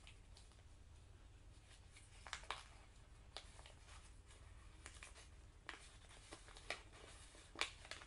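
Near silence in a small room: a faint low hum with a few scattered light clicks and rustles, the sharpest near the end.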